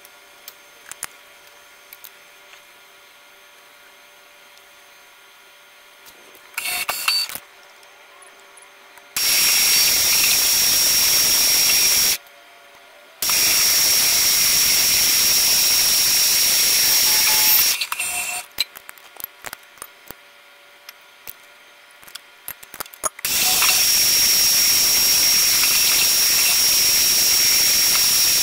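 Loud steady hiss with a thin high whistle from the mist-coolant air spray on a milling machine cutting an aluminium block. It switches on and off abruptly three times, the first after about nine seconds. Between blasts there is a low machine hum with scattered clicks and taps.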